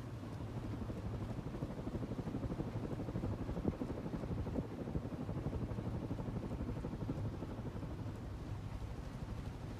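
NuTone Veranda Deluxe ceiling fan running: a steady motor hum under a rapid fluttering whoosh like a helicopter's.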